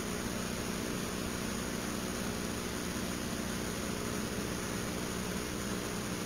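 Steady background hum and hiss, unchanging throughout, with no distinct events.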